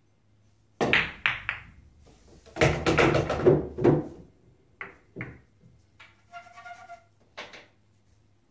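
Pool balls: a cue strike and sharp clacks of balls colliding about a second in, then a longer, louder clatter of balls knocking and rolling, and a few lighter clacks later on.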